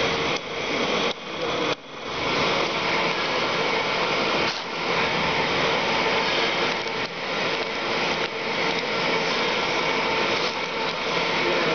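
Continuous noise of running machinery, dropping out briefly a few times in the first two seconds and once more about four and a half seconds in.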